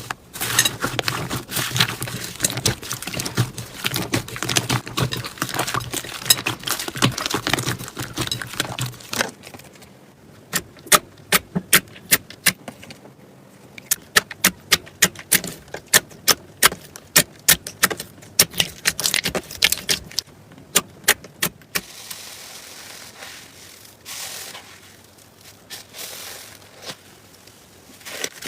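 Slime being squeezed and pressed by hand, crackling with dense clicks at first. About nine seconds in it turns to separate sharp clicks and pops, two or three a second, and near the end to a softer steady squishing rustle.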